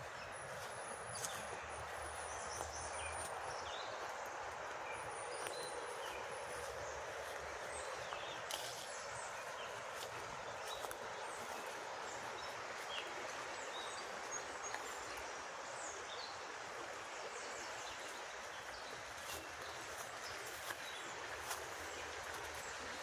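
Outdoor ambience: a steady even background hiss with scattered short, high bird chirps throughout.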